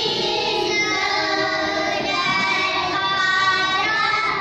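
Young children singing together in unison, holding long sung notes.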